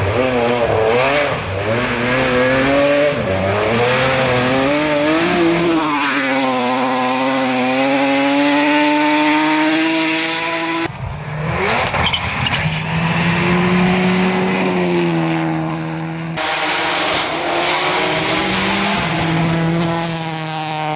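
Rally car engines at full throttle: the pitch swings up and down for the first few seconds, then climbs steadily as a car accelerates. The sound cuts off suddenly about eleven and sixteen seconds in, each time giving way to another car accelerating.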